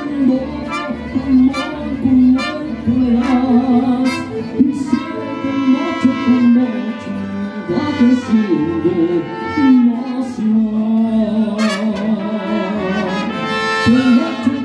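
Mariachi band playing an instrumental passage between verses. Strummed guitars and guitarrón bass keep a steady rhythm at first, then trumpets and violins carry the melody in long held notes from about five seconds in.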